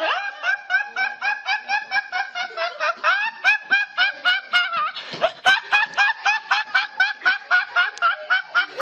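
High-pitched laughter: a long, unbroken run of quick, even "ha" syllables, about three to four a second.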